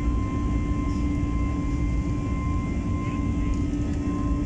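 Jet airliner cabin noise during the climb after takeoff: steady engine and airflow noise, a low drone with fainter high whines over it.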